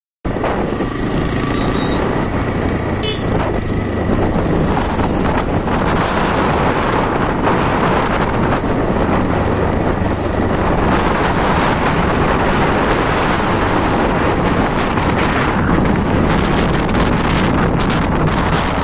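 Steady rush of wind on the microphone mixed with vehicle engine and road noise while riding along a road, with a single short click about three seconds in.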